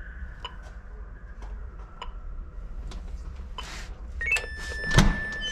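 Apartment-block door intercom calling a flat, with faint clicks, then the electric door lock releasing with a steady high buzz about four seconds in. Near the end the door is pulled open with a loud clunk.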